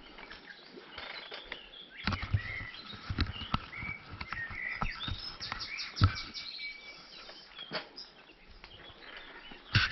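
Small birds chirping and singing, over the crackle of bicycle tyres rolling on light gravel with scattered clicks and knocks from the ride; the loudest knock comes about six seconds in.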